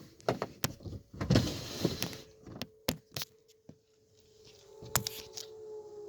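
A series of sharp clicks and knocks with a noisy rustle about a second in, and an outdoor warning siren's steady tone coming in at about two seconds.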